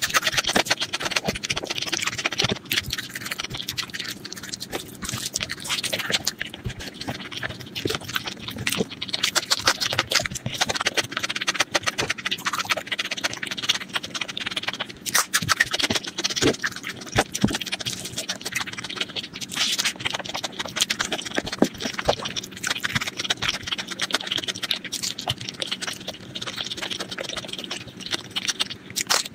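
Close-miked ASMR eating sounds of mutton curry and rice: wet chewing, lip smacks and sticky clicks in a dense, irregular stream.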